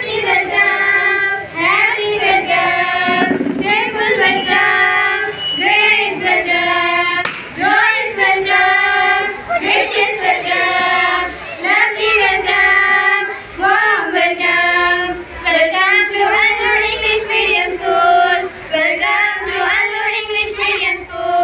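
A child's high voice singing a song in short phrases separated by brief gaps, with little or no instrumental backing.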